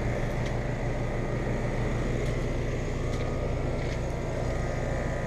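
Trane XR14 central air conditioner condenser running steadily, its compressor and fan giving a low hum under an even rushing noise, while a garden hose sprays water onto the unit.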